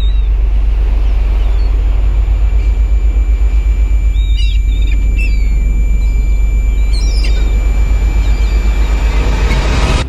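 Logo sound design: a loud, deep pulsing rumble under a thin steady high tone, with a few short bird chirps around the middle. It cuts off sharply at the end.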